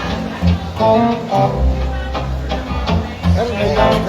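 Live band playing during a sound check: plucked electric guitar notes and chords over low, sustained bass notes.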